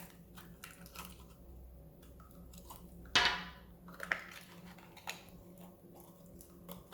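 Crunchy slime being squeezed and worked by hand, crackling with many small clicks, and one louder squelching pop about three seconds in.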